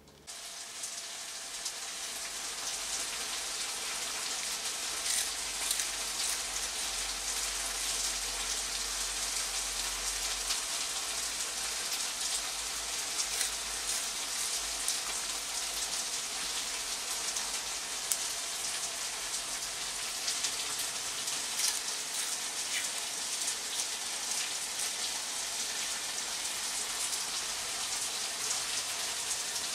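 A steady rain-like hiss with scattered faint crackles and ticks.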